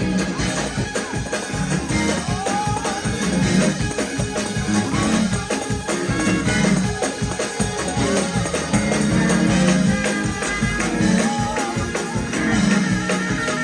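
Live church praise-break music: a fast, driving beat with tambourine shaking over a steady low bass line.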